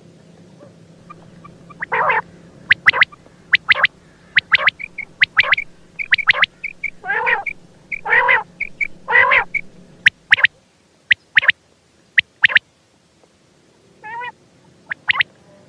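Quail calling: a run of sharp, short notes, often in twos and threes, beginning about two seconds in, with three longer, harsher calls in the middle. After about ten seconds the calls thin out to a few single notes.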